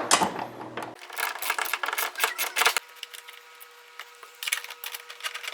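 Small metal parts clinking and rattling, bolts and washers being handled, in quick irregular clusters of sharp clicks.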